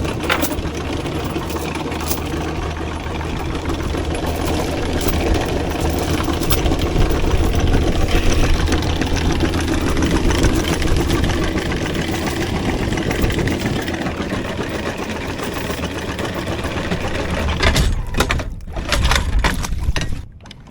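Anchor windlass hauling in the anchor chain with a steady motor whir, over the boat's running engine. Near the end come a series of clanks and knocks, and then the windlass stops suddenly as the anchor comes up.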